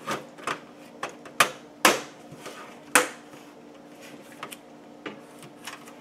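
Thin sheet-metal rear I/O shield being pressed into a computer case's back panel: a series of sharp metallic clicks and snaps as it seats in the opening, the loudest three about one and a half, two and three seconds in. A faint steady hum runs underneath.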